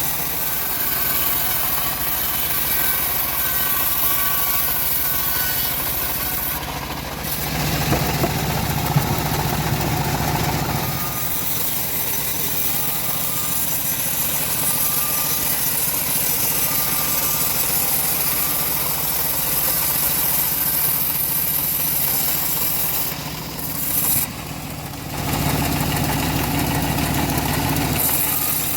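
Engine-driven homemade bandsaw mill running steadily while ripping semi-dry teak. Its sound turns heavier and deeper for a few seconds twice, about eight seconds in and again near the end.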